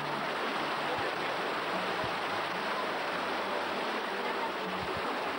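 Mountain stream rushing over rocks in a small cascade: a steady, even rush of water.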